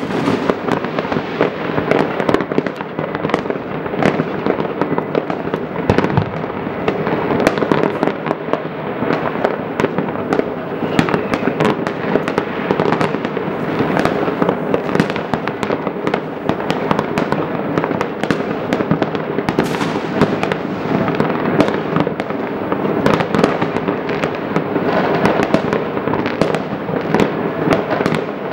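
Many fireworks going off at once from all over a city: a continuous, dense crackle of overlapping bangs and pops, with no let-up.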